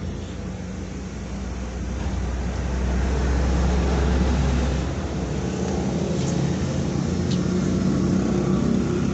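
A motor vehicle's engine running, a low rumble that grows louder about two seconds in and drops back around five seconds. A couple of faint clicks from eating near the end.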